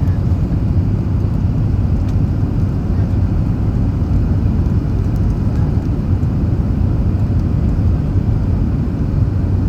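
Steady low rumble of an Emirates Airbus A380 on its landing approach, with no change in level.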